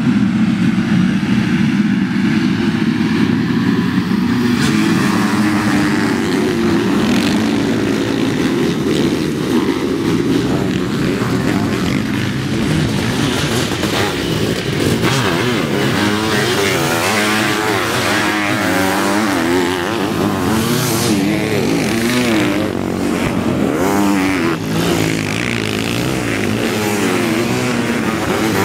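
A field of sidecar motocross outfits running at full throttle as they pull away from the start gate, many engines together. Later, the engines rise and fall in pitch as outfits rev through a dirt corner one after another.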